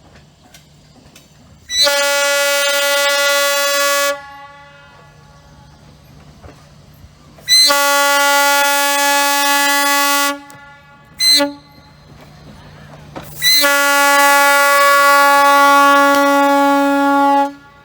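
Steam locomotive whistle blowing four blasts, long, long, short, long: the standard North American signal for approaching a grade crossing. Each blast is one steady pitch, and the last is the longest.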